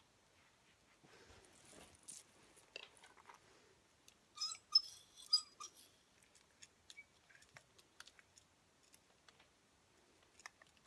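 Faint rustling of hair being sectioned and wrapped, with scattered small clicks and a brief patch of light clinking about four to five seconds in as a curling iron is handled.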